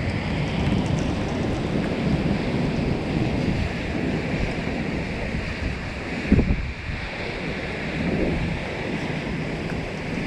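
Wind buffeting the microphone during a thunderstorm, a steady low rushing noise with a short low thump about six seconds in.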